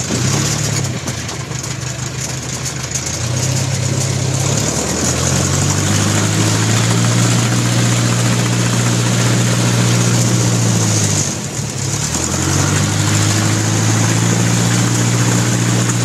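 Bellanca light aircraft's piston engine and propeller heard from inside the cockpit as the plane rolls on the ground, with a steady rush of propeller wash and wind. The engine speed rises and falls a few times and drops off briefly about eleven seconds in before picking up again.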